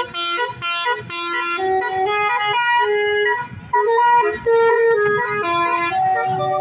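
A bus's basuri telolet musical air horn playing a melody: a quick run of loud, stepped horn notes, one after another.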